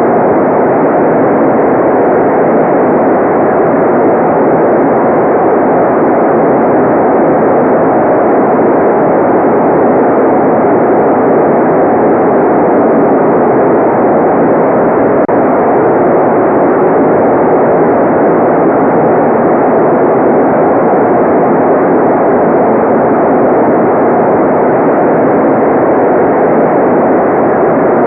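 Steady generated white noise: an even, unchanging rushing hiss with nothing on top and no high treble.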